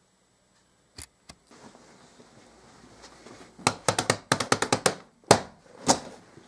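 Hands slapping a packed rucksack: two light clicks, then a quick run of about eight sharp slaps, followed by two louder thumps.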